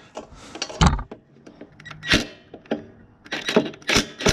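About five sharp metallic clicks and clinks, irregularly spaced, as the socket on a Ryobi impact driver is worked onto a lawn mower's spark plug.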